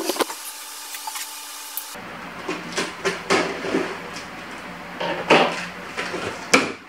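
Cardboard shipping box being opened by hand: the packing tape on the top seam cut and pulled, with cardboard rustling and scraping. A couple of sharp knocks near the end as the flaps are worked loose.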